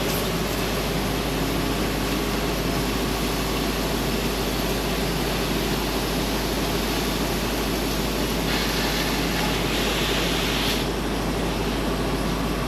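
Handheld laser cutter running with a steady rushing hiss and low machine hum as it cuts into the body sheet metal. About two thirds of the way in, a sharper, brighter hiss rises for a couple of seconds, then drops back.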